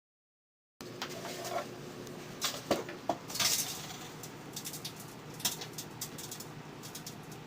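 Microwave oven running with a steady low hum, with scattered sharp clicks and clinks, a cluster of them about halfway in.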